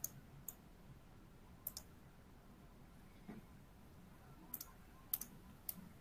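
Near silence: quiet room tone with a handful of short, sharp clicks at irregular intervals, several of them in close pairs.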